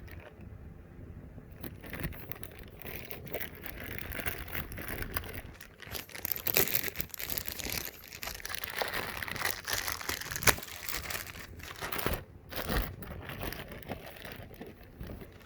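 Plastic packaging crinkling and rustling as it is handled, with scattered light knocks and one sharper knock about ten seconds in.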